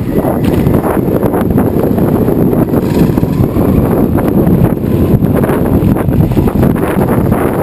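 Skateboard wheels rolling over paving slabs, a loud continuous rough rumble with rapid small clacks from the joints and cracks, mixed with wind buffeting the microphone.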